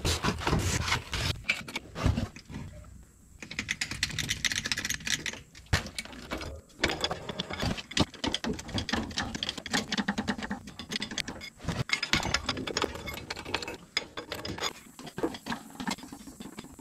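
Hydraulic bottle jack being worked with its steel pump handle under a crawler dozer: a run of rapid metallic clicks and rattles, with a few short pauses.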